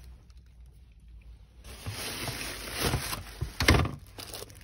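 Thin plastic takeout bag rustling and crinkling as it is handled around a foam food box. The sound starts about two seconds in, with a few sharper crackles about three and a half seconds in.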